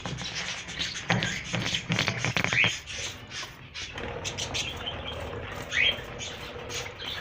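Caged budgerigars chirping and chattering: a fast clicky run of calls in the first few seconds, with sharper single chirps about two and a half and six seconds in.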